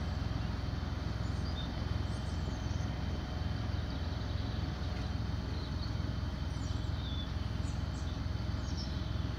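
Steady low wind rumble on the microphone, with scattered short bird chirps.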